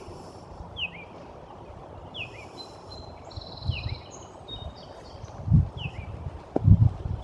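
A songbird repeating a short, falling chirp about every second and a half, with other birds calling higher in the middle. In the second half, low gusts of wind rumble on the microphone, louder than the birds.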